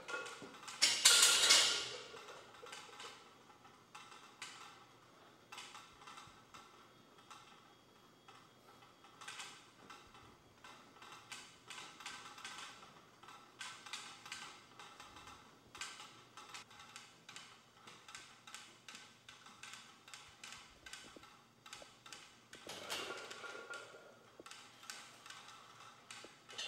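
Scattered light clicks and taps of gym equipment, with a loud rushing burst about a second in and a softer one near the end.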